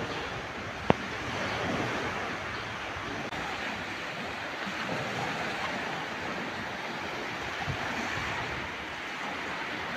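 Small sea waves breaking and washing up the shore in a steady surf hiss. A single sharp click about a second in.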